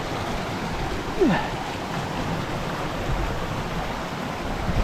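Flowing water of a creek and waterfall: a steady rushing hiss, with a short falling voice sound about a second in.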